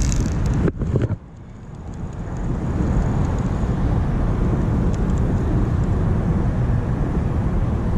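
Wind buffeting the microphone, a loud low rumble that cuts out briefly after a couple of knocks about a second in and builds back up over the next two seconds.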